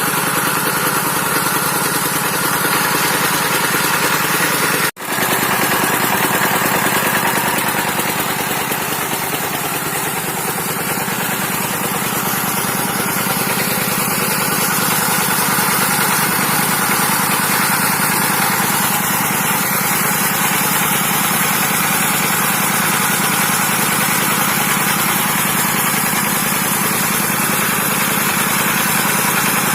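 Dongfeng 12 HP single-cylinder diesel engine running steadily while it drives an NS 100 irrigation water pump. The sound cuts out for a split second about five seconds in.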